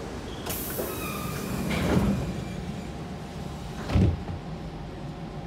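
Siemens C651 train's sliding passenger doors closing: an air hiss about half a second in, a thud at about two seconds, and a louder thud about two seconds later over a low steady rumble.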